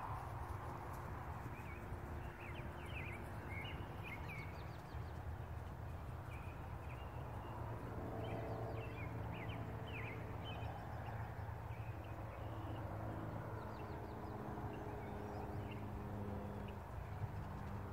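Birds chirping in short, scattered calls over a steady low outdoor rumble.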